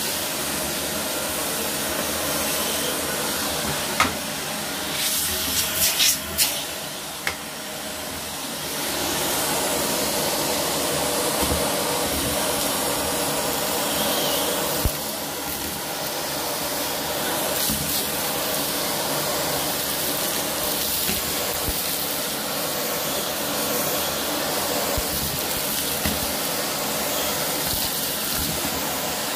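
Dyson vacuum cleaner running steadily as it sucks up a pile of dust, lint and small debris from carpet. A few sharp clicks and rattles come between about four and seven seconds in.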